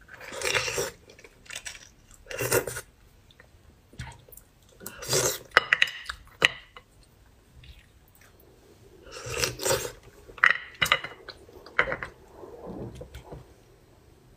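Close-up eating sounds of spicy beef bone marrow: short wet sucking and chewing noises every couple of seconds, with a run of sharp clicks from a metal utensil scraping inside the bone about five to six seconds in.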